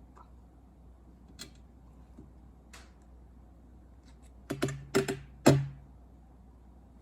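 Small clicks and taps of a smartphone and its SIM tray being handled as the SIM card is taken out: a couple of faint ticks, then a quick run of four louder taps and knocks about four and a half seconds in.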